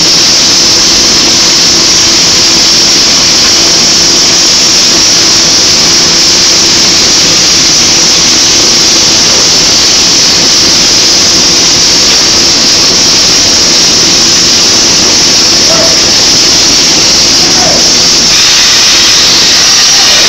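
Loud, steady machine noise from pipeline welding equipment: a high hiss over a low, even hum. About two seconds before the end, a hand-held angle grinder starts grinding the steel pipe joint, adding a harsher grinding noise.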